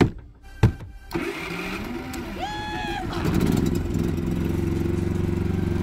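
Champion 5500-watt dual-fuel inverter generator being electric-started: two sharp clicks, then the engine catches about a second in and settles into a steady run, a little louder from about three seconds in. A brief high pitched shout cuts in over it about two and a half seconds in.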